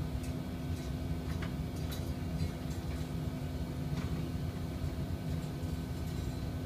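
Steady hum of running shop machinery, with a few light clicks about a second and a half, two and four seconds in.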